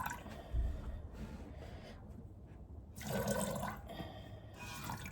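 Milk squirting from a goat's teat into a milking pail during hand milking: a couple of short spurts as the udder nears empty, with a dull low thump about half a second in.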